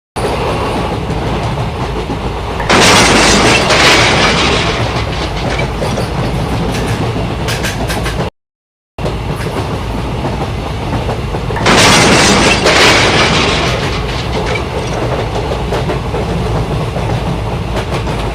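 Train running along the track with a steady rumble and clatter, growing louder for about two seconds a few seconds in. It cuts out briefly about halfway through, and the same passage starts again.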